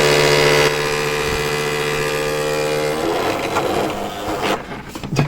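A newly built PC's fan running with its blades hitting a paper instruction manual caught in its way, giving a loud, steady buzzing rattle. The buzz drops a step less than a second in, then winds down and dies away between three and four and a half seconds in as the PC is shut off.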